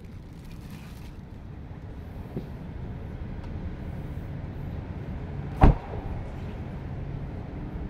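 The rear side door of a Mitsubishi Xpander is shut once, a single sharp thud about five and a half seconds in, over a steady low background rumble.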